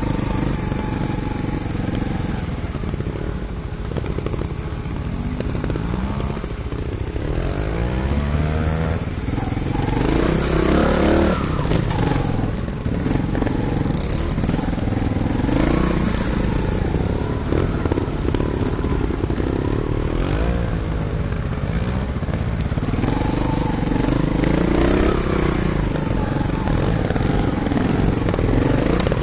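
Trials motorcycle engines under load on a steep, rough trail, the nearest one close up. The pitch rises and falls repeatedly with bursts of throttle.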